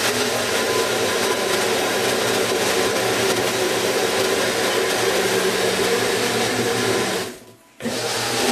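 Personal-size cup-on-base blender running, blending a smoothie of fruit, spinach and almond milk, with a steady motor hum under the churning. Near the end it stops for about half a second, then starts again.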